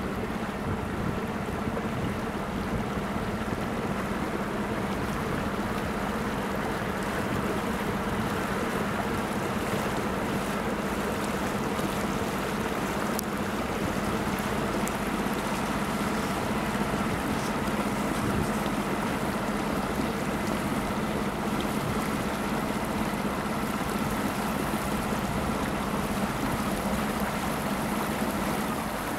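Drive machinery of a 1918 bascule railway bridge running as the leaf moves: a steady low hum with a fainter higher whine that fades near the end, over a hiss of wind and water.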